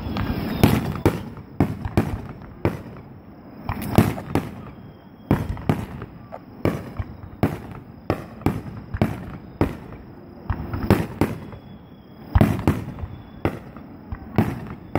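Aerial firework shells bursting one after another: an irregular string of sharp bangs, about two a second, the bigger ones trailing a low boom.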